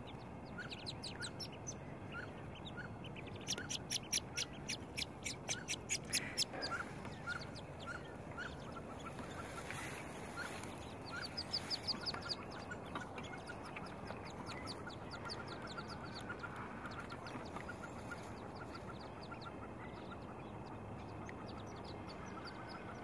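Wood duck hen and her ducklings calling on the water: many short high peeps, several a second, with louder runs about four to six seconds in and again around twelve seconds.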